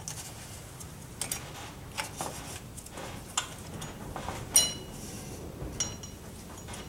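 Pliers and steel drum-brake springs and hardware clicking and clinking as the springs are worked off, with a sharper, briefly ringing metal clink about four and a half seconds in.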